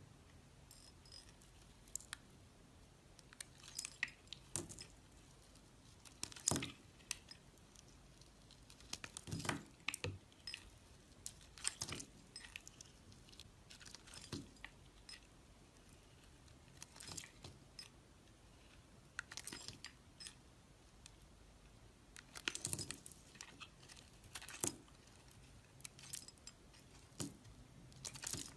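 Knife carving a bar of soap: short, crisp scraping and crunching cuts at irregular intervals, with quiet pauses between.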